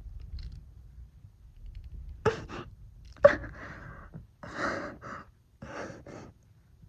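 A person breathing hard from exhaustion after push-ups: about two seconds in come five or so heavy breaths and gasps. The first two start sharply and are the loudest, and some carry a voiced whimper.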